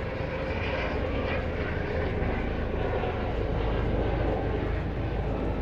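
Microwave oven running with lithium batteries inside it: a steady, even hum.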